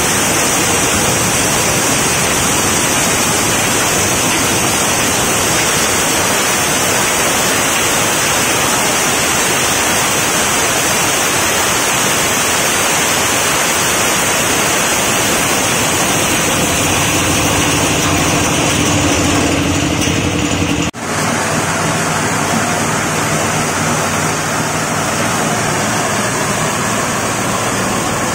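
Corn grinding machine running under load, milling corn kernels: a loud, steady rushing noise. It breaks off for an instant about 21 seconds in, then carries on with a low hum beneath it.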